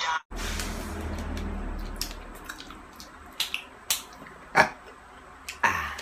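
Quiet room sound with a low hum over the first two seconds, then a few soft clicks and one sharp hand clap about four and a half seconds in.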